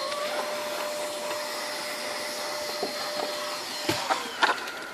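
A motor running steadily with a constant hum, which stops about four seconds in. A few sharp clicks and knocks follow near the end.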